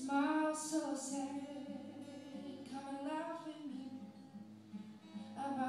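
A woman singing to her own acoustic guitar: sung phrases at the start, again about halfway through, and near the end, with the guitar carrying on between them.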